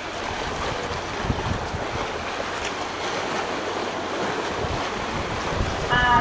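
Steady rush of wind on the microphone over choppy sea water, with a few low wind buffets. Near the end a pitched sound with several tones starts, louder than the wind.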